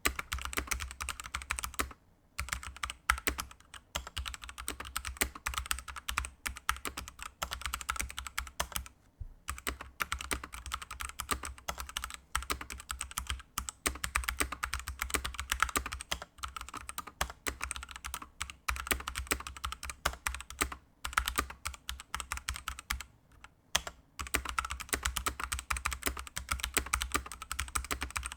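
Fast typing on a Ducky One 2 Mini 60% mechanical keyboard with linear Kailh Pro Burgundy switches, damped with rubber O-rings: a continuous patter of key strokes broken by a few brief pauses.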